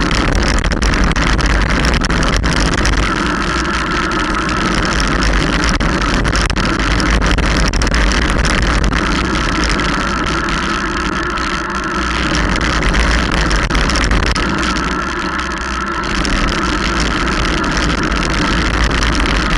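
Steady rush of wind buffeting the microphone of a camera moving at speed down a road, with a deep rumble, road noise and scattered small rattles and clicks from the mount.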